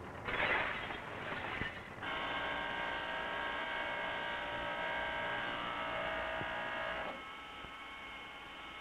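Electric angle grinder running with a steady whine as it grinds metal, starting about two seconds in and stopping about seven seconds in. A rougher, noisier sound comes just before it.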